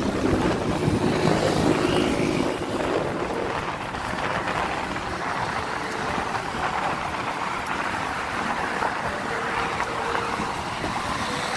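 Steady road and wind noise from a vehicle driving along a city road, with other traffic passing.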